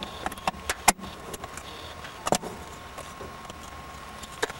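Sharp clicks and knocks from a car's brake master cylinder cover being handled to check the brake fluid: a quick cluster of several in the first second, the loudest just before one second in, then single knocks at about two and a half seconds and near the end.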